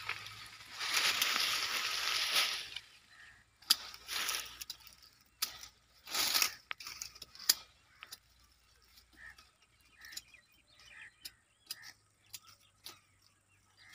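Rustling swishes of leaves and grass, each lasting about a second, followed by a scatter of sharp clicks.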